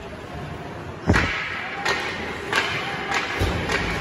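Ice hockey play: several sharp cracks and thuds of sticks and puck striking, and of the puck against the boards, echoing in the rink. The loudest crack comes about a second in, and the others follow roughly every two-thirds of a second, one of them a heavier thud.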